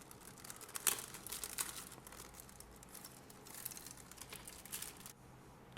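Plastic packaging crinkling and crackling as the pencil pack is handled, with irregular small crackles that stop about five seconds in.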